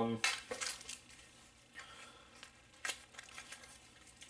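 Soft handling sounds of small gear being picked out of a semi-rigid kit case: a few isolated light clicks and faint rustles.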